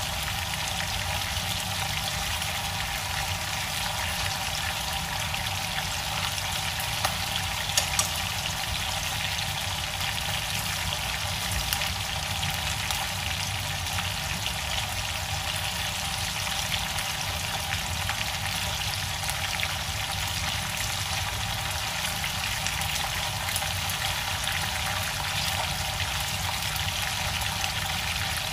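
Fish head frying in hot oil in a non-stick pan: a steady sizzle, with a few sharp clicks about seven, eight and twelve seconds in.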